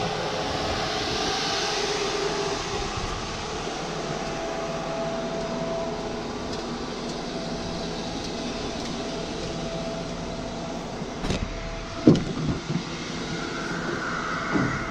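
Ladder truck's engine running steadily, with a faint steady whine over it. A sharp knock about twelve seconds in, with a few lighter clicks around it.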